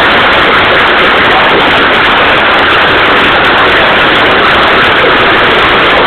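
Hail and heavy rain pelting down in a storm, a loud, steady din with no let-up.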